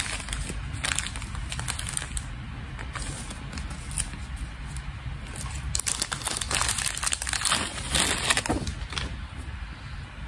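A thin clear plastic bag crinkling and crackling as hands open it and pull out a beaded mask lanyard, in irregular crackles that are busiest from about six to eight and a half seconds in.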